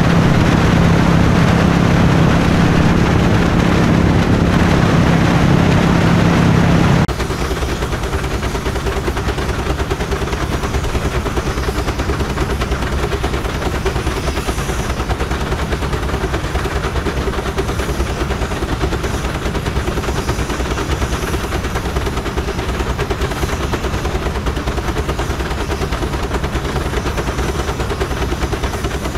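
Steam traction engine working on the belt: loud steady running with a low hum, changing abruptly about seven seconds in to a slightly quieter, fast, even beat.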